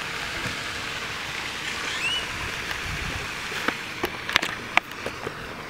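Steady outdoor hiss, then a handful of sharp clicks and knocks in the second half as the camera is picked up and handled.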